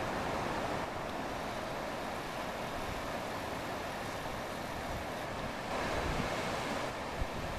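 Steady rush of ocean surf breaking, with wind buffeting the microphone and a few low thumps near the end.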